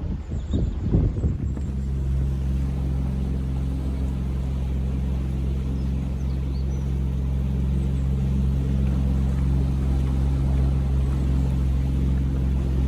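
Viking 26 cabin cruiser's engine running steadily, a low even hum; wind buffets the microphone for the first second or so before the engine settles in.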